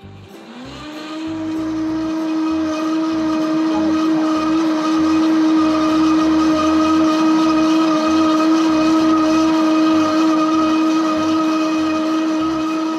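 Blender motor spinning up with a rising whine in the first second, then running at a steady pitch while it purées blanched spinach, potato and broth into a smooth cream.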